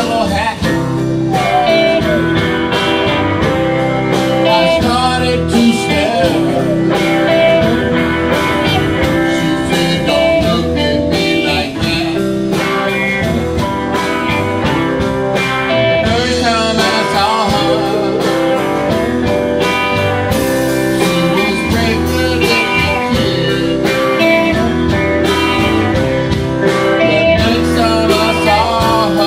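Live blues band playing: two electric guitars, electric bass and drum kit.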